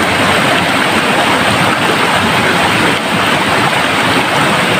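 Rocky river rushing over boulders: a steady, even rush of water.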